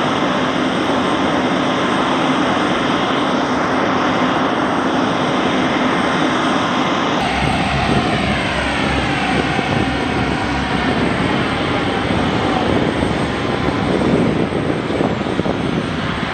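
Aircraft turbine engines running on an airfield flight line: a loud, steady roar with a whine. About seven seconds in the sound changes, and after that several whining tones slide down in pitch over a few seconds.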